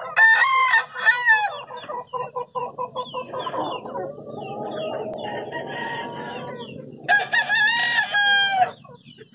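Gamefowl chickens calling: two loud short calls open, then a run of quick clucks, and near the end a rooster crows once, a long call of about a second and a half that drops in pitch at its close.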